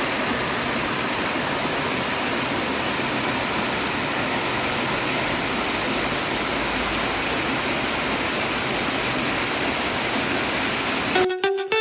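Steady, even rushing of a waterfall pouring into a stream. Near the end it cuts off suddenly and plucked guitar music begins.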